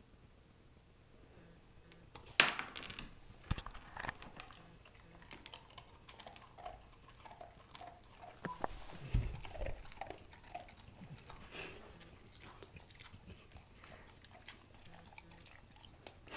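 A yellow Labrador retriever crunching and chewing a dog treat: irregular faint crunches and clicks, a few sharper ones early on, with one low thump about nine seconds in.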